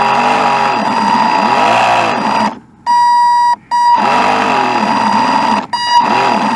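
An electronic beeping tone that alternates with a warbling whine sweeping up and down in pitch. It drops out briefly about two and a half seconds in and again near the end.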